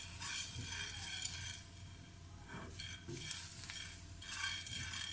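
Whole black peppercorns being dry-roasted in a nonstick frying pan and stirred with a silicone spatula: the spatula scraping the pan and the peppercorns rolling and ticking across it.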